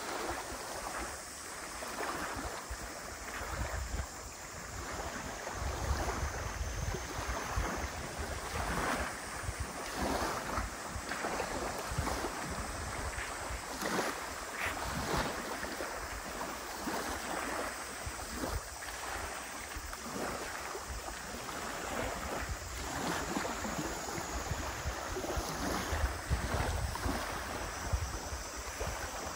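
Small lake waves lapping and washing onto a pebbly shore in a continuous, uneven wash, with wind buffeting the microphone in low rumbles.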